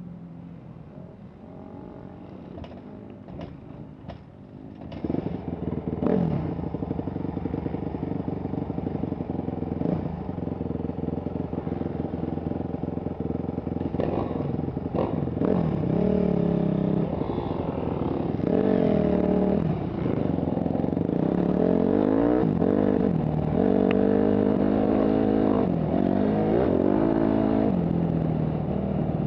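Motocross bike engine, heard from the rider's helmet: it runs low for about five seconds, then gets louder, and from about halfway its pitch repeatedly climbs and drops as the bike accelerates and shifts through the gears onto the dirt track.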